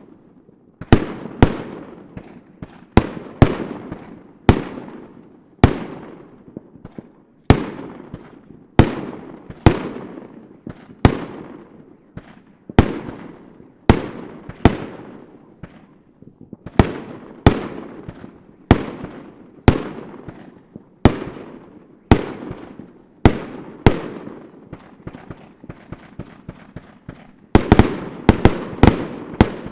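Aerial fireworks bursting, sharp bangs about once a second, each trailing off in a decaying echo. After a short lull near the end, a rapid flurry of bangs.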